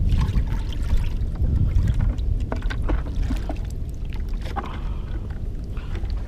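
Steady low rumble of rushing, churning water, with small splashes and water sloshing as a plastic bucket is dipped into a shallow pool and filled.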